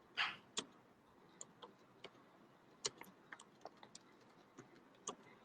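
A series of faint, sharp clicks at uneven intervals, about a dozen in all, with a brief rustle at the start.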